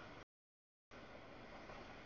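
Faint, even rolling noise of a CSX double-stack container train passing over the crossing, cut off completely by an audio dropout just after the start and returning about a second in.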